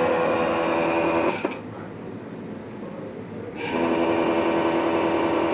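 Multimeter continuity buzzer sounding twice as tactile switches on a sewing-machine control panel are tested with the probes: a steady electronic buzz of about one and a half to two seconds each time, cutting off sharply, showing that each switch closes when pressed.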